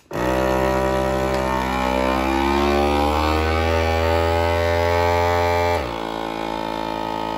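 Seal-A-Meal vacuum food sealer's pump motor starting up and running with a steady hum, its pitch creeping up over the first couple of seconds as it draws the air out of a sealer bag. About six seconds in the sound drops to a quieter, higher steady hum.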